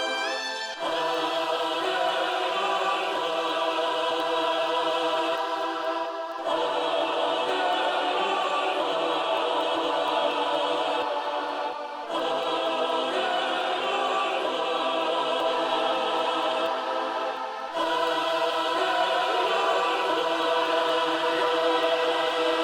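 Ambient music of sustained, held chords that change about every six seconds.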